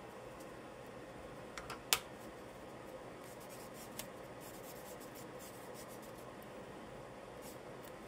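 Charcoal scratching and rubbing on paper in short strokes, with a few sharp clicks, the loudest about two seconds in.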